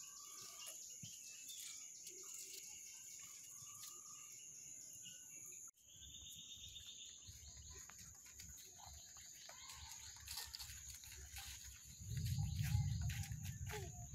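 Outdoor ambience of scattered bird calls and chirps over a steady high hiss, with a low rumble coming in near the end.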